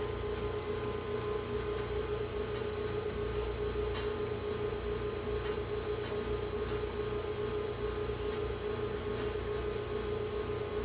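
Boiler-room machinery running with a steady hum: a strong unwavering mid-pitched tone over a low rumble and a faint hiss.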